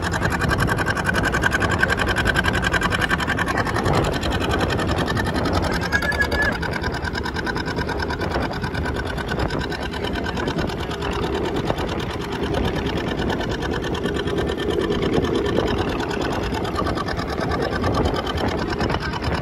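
A motorboat's engine running steadily, heard on board, with a fast, even mechanical chatter.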